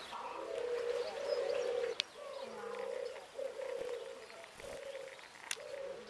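Doves cooing in a steady run of overlapping phrases, with faint short chirps from small birds. Two sharp clicks, about two seconds in and near the end.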